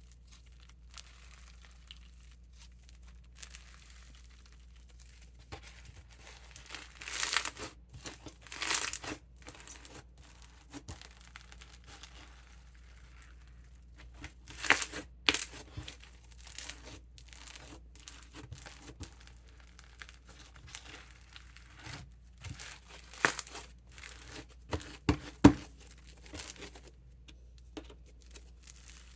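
Crunchy bingsu slime packed with beads (King Slime Company's Honeydew Fruity Crisp) being squeezed and stretched by hand, the beads crackling and crunching. Quiet scattered crackles run between several louder bursts of crunching.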